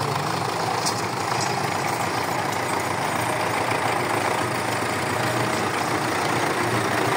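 Belarus 510 tractor's four-cylinder diesel engine running steadily as the tractor drives with a mounted seed drill, growing slightly louder as it comes closer.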